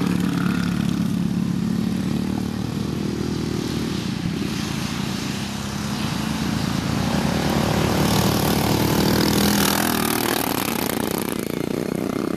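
Racing riding lawn mowers' small engines running as the mowers race around the track. The sound gets louder from about eight seconds in as they come close.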